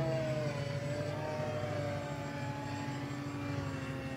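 Battery-electric Hangar 9 Piper Cub RC model plane flying a pass overhead: the whine of its electric motor and propeller, its pitch sliding slowly down as the plane goes by, over a steady low hum.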